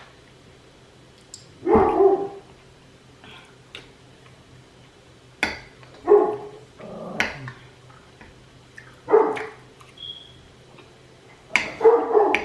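A dog barking in single barks every few seconds, with a quicker run of barks near the end.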